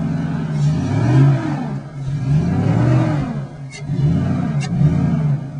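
A vehicle's engine is revved hard about three times, its pitch rising and falling each time, as it tries to drive forward while stuck in desert sand.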